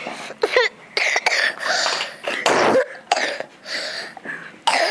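A boy with asthma coughing repeatedly, a string of separate coughs.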